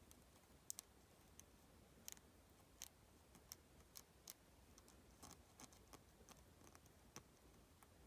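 Faint, irregular ticks and scratches of a thin metal pin picking at an iPhone XR's bottom speaker grille and Lightning port to clean them out.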